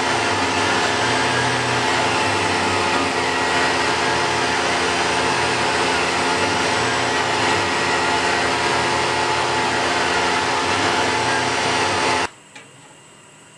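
CNC milling machine running at speed: a steady high-speed spindle whine made of several fixed tones over a dense hiss of cutting. It cuts off suddenly near the end, leaving a much quieter steady hiss.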